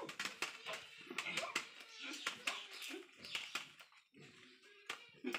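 Fresh leaves rustling and crinkling while grain is scooped and pressed into rolled leaf cones by hand, with many short, uneven clicks and rattles from the grains and leaves.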